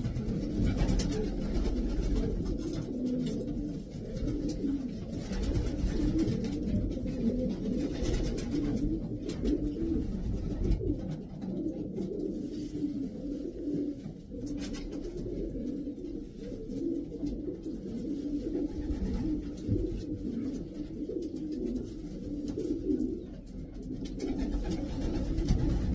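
Racing pigeons cooing, many low coos overlapping continuously, with a few short clicks among them.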